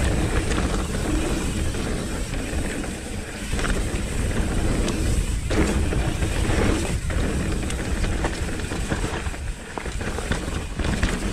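Mountain bike (Nukeproof Reactor 275) riding down a dirt trail: tyres running over the ground and the bike knocking and rattling over bumps. Heavy wind rumble on the action camera's microphone runs through it.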